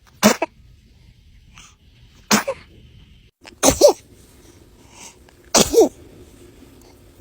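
Newborn baby sneezing: a series of short, sharp sneezes a second or two apart, the later ones each in two quick parts ending in a small squeak.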